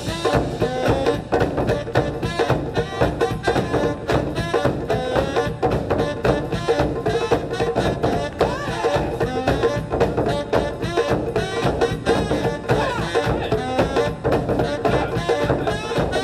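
Japanese taiko drum ensemble playing a fast, dense pattern of drum strokes, with a melody line over the drumming.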